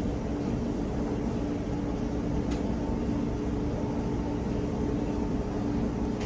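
Steady mechanical hum over an even rushing noise from running kitchen machinery, unchanging throughout, with one light tap about two and a half seconds in.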